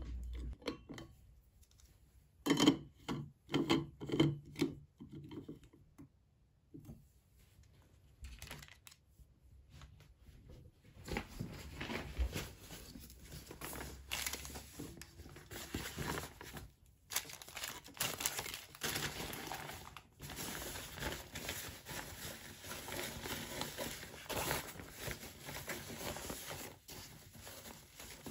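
A few knocks and clinks as a stainless-steel Stanley vacuum bottle is handled and capped. Then a long run of rustling and crinkling as plastic-wrapped bread, a soup packet and the bottle are packed into a fabric insulated lunch bag.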